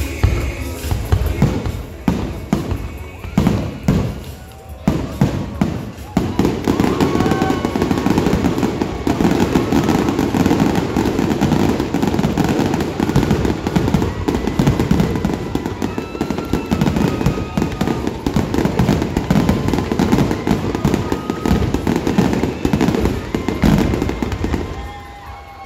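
Fireworks finale: a few separate shell bursts, then from about six seconds in a rapid, unbroken barrage of aerial bursts and crackle that stops just before the end.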